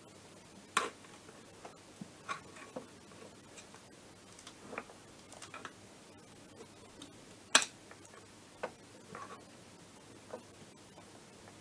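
Scattered small clicks and taps of hands handling small scooter engine parts while a dust cover is worked into place, with two sharper clicks, about a second in and just past halfway.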